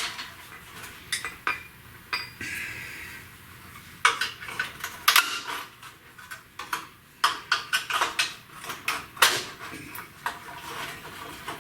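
Metallic clinks, clanks and rattles as a car's headlight and its mounting hardware are worked loose by hand. A few knocks at first, then a dense, irregular run of sharp clinks from about four seconds in.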